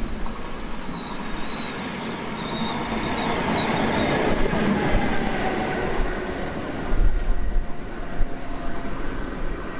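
Electric locomotive passing close by, its wheels rumbling on the rails. A thin high squeal sounds for the first few seconds, and heavy clacks over the rail joints come about seven seconds in.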